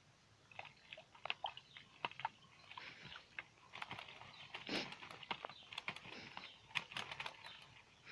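Ducklings and a Muscovy duck dabbling and drinking at a plastic water bowl: a faint run of quick clicks and small splashes, getting busier about halfway through.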